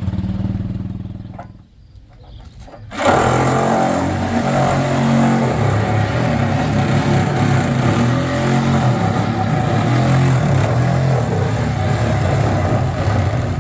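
A vehicle engine runs, fades away about a second and a half in, then after a short lull comes back in suddenly and loud, running steadily with its pitch shifting a little up and down.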